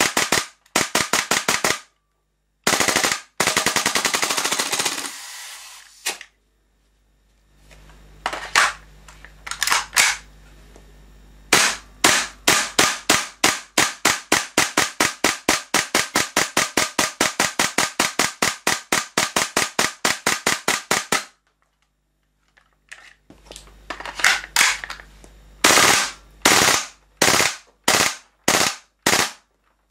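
WE SMG-8 gas-blowback airsoft submachine gun firing in strings of rapid sharp shots with short pauses between them. One dense burst about three seconds in weakens and trails off. A long even string runs through the middle, and spaced single shots come near the end.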